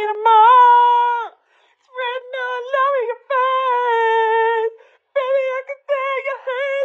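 A woman's voice singing a melody alone, with long held notes and shorter stepping phrases separated by brief pauses.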